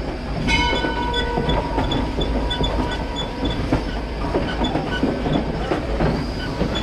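Wheels of the train pulled by Pennsylvania Railroad 0-6-0 steam locomotive #643 rolling along the track, heard close to the running gear: a steady rumble with clicks over the rail joints. A ringing high-pitched tone starts suddenly about half a second in and dies away by about three seconds.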